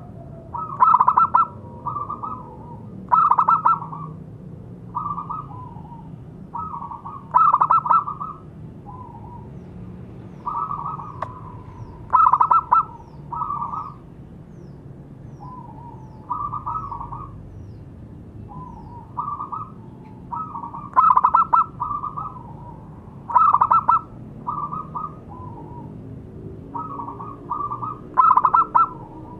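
Zebra dove (perkutut) song: bouts of short rolling coos repeated every second or two, some phrases much louder than others.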